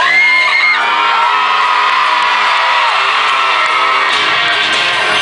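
Live pop-rock band music heard from within an arena crowd, with high whoops and yells from audience members near the recorder, the loudest starting suddenly at the beginning.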